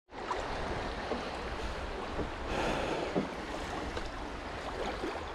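Choppy river water lapping and slapping against a kayak's hull as it is paddled, with wind on the microphone and a few light knocks.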